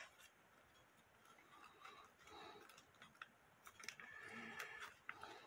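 Near silence with faint clicks and rustles of blue painter's tape being handled, a little louder about four seconds in.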